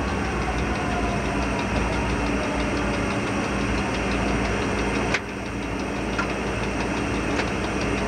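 Diesel locomotive engine running steadily, heard from inside the cab along with the rumble of the train on the rails. About five seconds in there is a sharp click, after which the sound drops suddenly and then builds back up.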